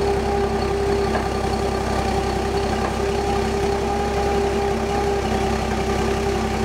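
Propane-fuelled Clark forklift engine idling, a steady hum that does not change in pitch or level.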